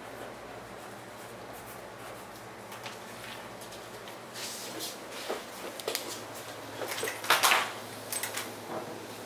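Quiet room tone with a steady low hum. From about four seconds in come rustles and small knocks of someone moving about, and near the end a louder clatter of a room door's lever handle and latch as the door is opened.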